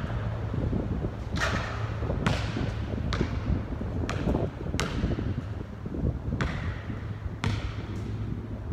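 A basketball bouncing on a hard outdoor court, about seven sharp thuds at uneven intervals. Each bounce echoes under the pavilion's metal roof.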